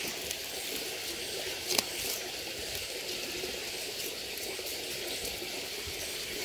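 Steady background hiss with no clear source, and a short sharp click about two seconds in.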